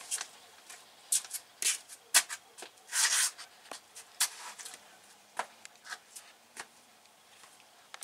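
Close rustling and light clicks, irregular and handled-sounding, with a longer rustle about three seconds in.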